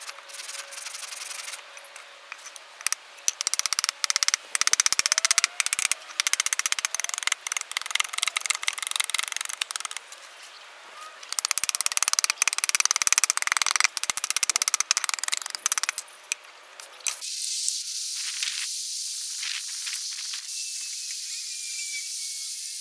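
A hand tool scraping and rasping wood in quick repeated strokes, with a short pause about ten seconds in. About seventeen seconds in the scraping stops abruptly and a steady hiss takes over.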